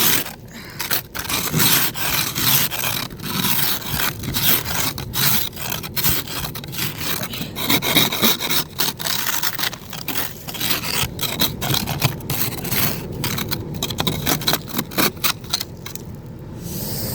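Ice being scraped off a car's side window in quick, repeated, irregular scraping strokes, with a short pause near the end.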